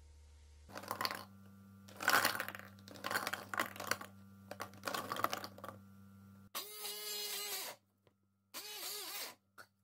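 Fresh cranberries clattering into a plastic blender beaker, then a hand-held immersion blender run in short pulses, its motor pitch wavering as the blades chop the berries.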